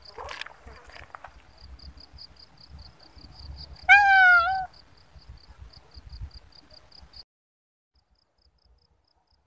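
A calico cat meows once, a short call that rises and falls in pitch about four seconds in. Behind it, insects trill in a steady rapid pulse until the sound cuts off suddenly about seven seconds in.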